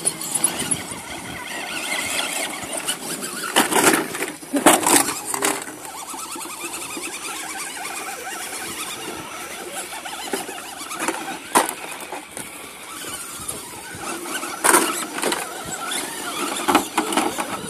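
Electric motors and gears of RC rock crawlers whining as they climb a rock face, with several sharp clunks of tyres and chassis against the rock, the loudest a few seconds in.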